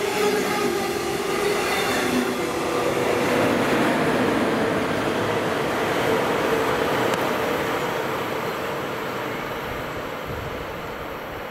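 Electric train passing on the line, a loud rush of wheels on rail with a steady electric hum, fading away over the last few seconds.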